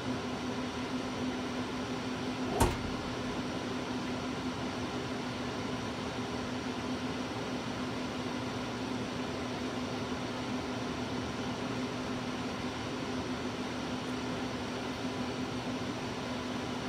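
Steady electrical hum of a CNC router's control cabinet, with one sharp click about two and a half seconds in.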